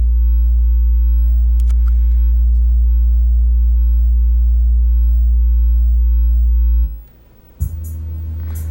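Steady low sine-wave test tone of about 58 Hz, held at one pitch with faint overtones, that cuts off about seven seconds in. Music with a drum beat starts near the end.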